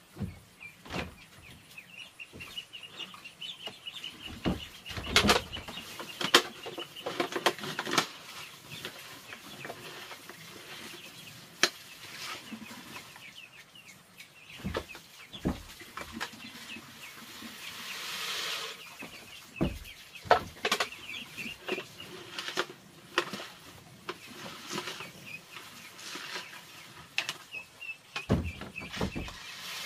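Farm poultry clucking, with rapid high chirping and scattered sharp knocks and clatters; a short rustling hiss about eighteen seconds in.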